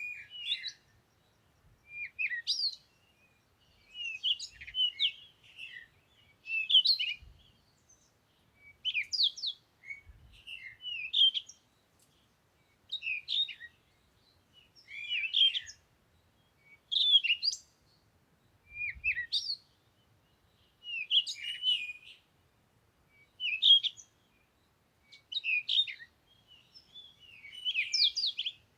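A bird singing short chirping phrases, repeated about every second or two with brief pauses between.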